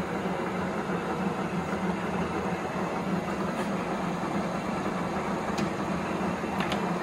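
Tuda Hysan Myler 20" x 80" engine lathe running steadily with an empty chuck, its 10 HP motor and headstock gearing giving a steady hum. A few faint clicks come late on.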